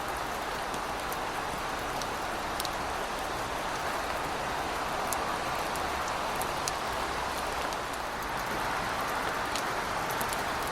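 Heavy rain falling steadily, a dense even hiss with scattered sharp drop ticks on hard surfaces.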